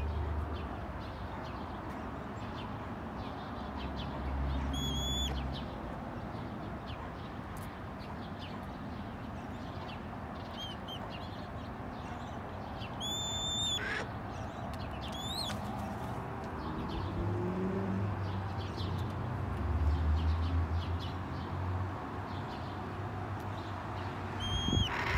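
Red-tailed hawk giving a handful of short, high-pitched whistled begging calls, spaced several seconds apart, over a steady low outdoor hum.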